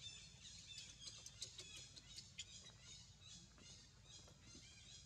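Faint, rapid high-pitched chirping calls, repeated many times, with a few sharp clicks, over a low steady rumble.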